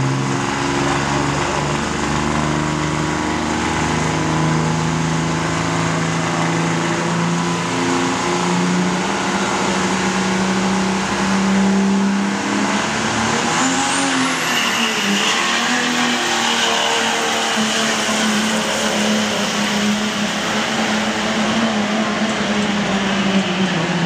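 Turbocharged diesel pickup truck engine running hard at high revs, its pitch wavering and dipping about halfway through before steadying. A high thin whine rises at the same moment and then holds.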